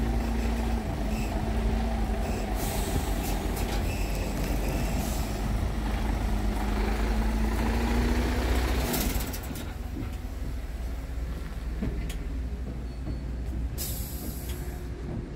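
Scania R tractor unit's diesel engine idling with a steady low rumble, with short hisses of compressed air at intervals, the last one near the end.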